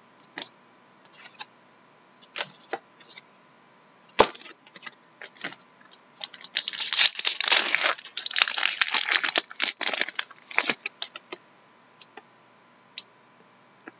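Trading cards and clear plastic card holders being handled on a desk: scattered small clicks and a sharp knock about four seconds in, then a few seconds of dense crinkly rustling from about six seconds, tailing off into a few more clicks.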